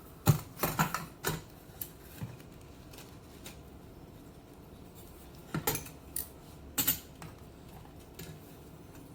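Small metal parts and a screwdriver clicking and clinking while the ringer bells of an Automatic Electric Type 90 telephone are fitted. There is a quick run of clicks in the first second or so, then a few more about six to seven seconds in.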